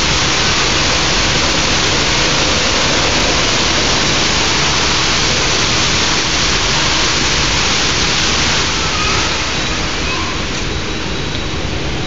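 Fountain water jets splashing into the pool during a water show: a steady rush of falling water that eases a little about nine seconds in.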